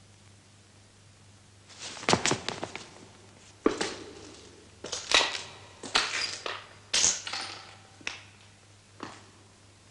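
Wooden slats of a basement partition knocking and cracking as they are wrenched by hand. The sharp crunches come roughly once a second, starting about two seconds in.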